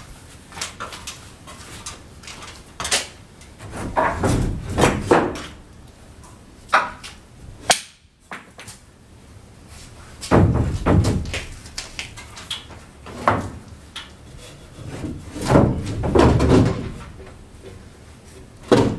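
Wooden knocks and thumps from lumber being handled: roof trusses and boards being shifted and set against the wall framing. They come in short clusters of several knocks, a few seconds apart, with scattered single clicks between.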